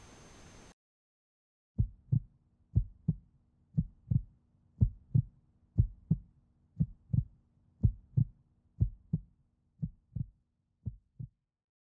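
Heartbeat sound effect: paired lub-dub thumps about once a second, growing fainter near the end, over a faint steady hum.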